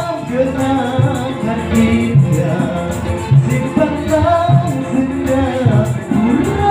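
A live gambus band playing, with singing over a steady percussion beat.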